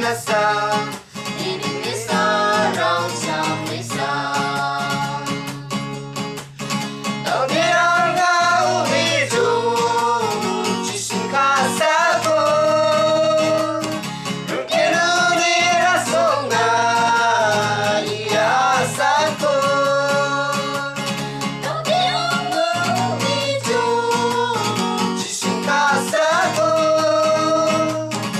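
A small group of men and women singing a song together, accompanied by a strummed acoustic guitar.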